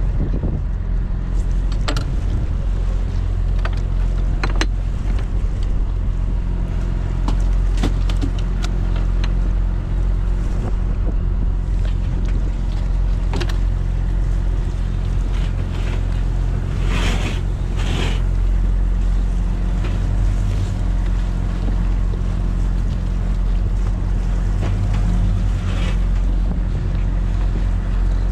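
A small fishing boat's engine runs with a steady low hum under wind and water noise. Scattered clicks and knocks come from work on deck, and there are two short hissing bursts about seventeen seconds in.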